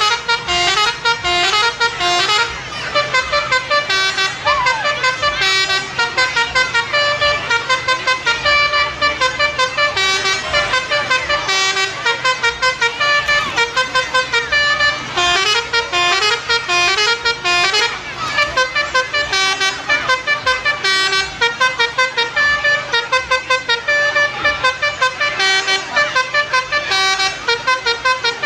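Telolet horn, a multi-tone electric bus horn, playing a quick melody. Chords of several pitched notes switch from note to note and pulse on and off a few times a second without a break.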